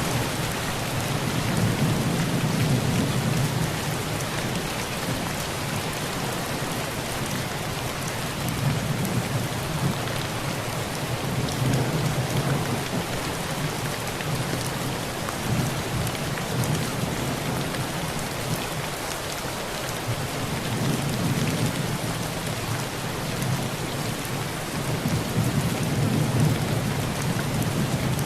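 Heavy rain falling steadily on a rusty tin roof, with distant thunder rolling in low swells that rise and fade several times.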